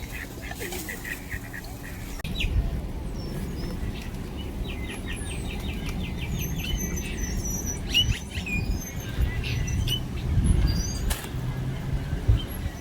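Small birds chirping and whistling, with a fast trill of about a dozen even notes a few seconds in. A low rumble starts about two seconds in under the calls.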